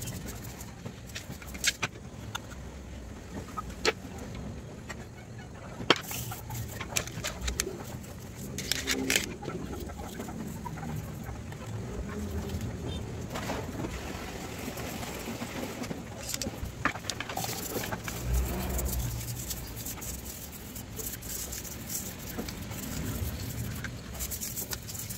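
Brushes scrubbing and scraping a grimy Suzuki Swift throttle body over a metal pan, with scattered sharp clicks and knocks of the part and tools against the pan. Birds are calling in the background.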